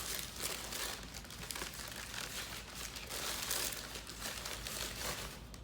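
Packing paper or wrapping crinkling and crumpling as a parcel item is unwrapped by hand, the noise easing off near the end.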